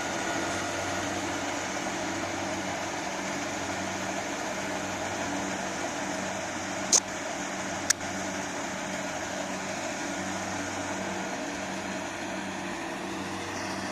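Rice-harvesting machine's engine running steadily, with two sharp clicks about a second apart near the middle.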